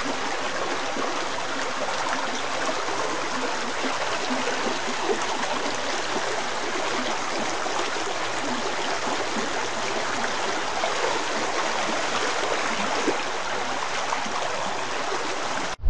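Running water in a ravine: a steady, even rush that cuts off suddenly near the end.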